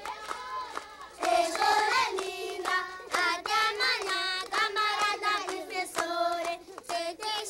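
A group of children singing together in unison, holding long steady notes.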